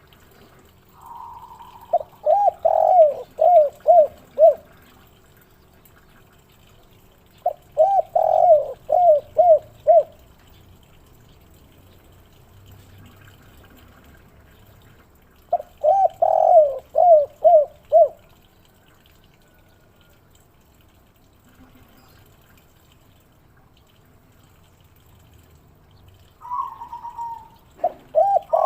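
Spotted dove (derkuku) cooing in the 'kuk 3' song style: three phrases of quick, bouncing coos, each about two to three seconds long and several seconds apart, with a fourth phrase starting near the end.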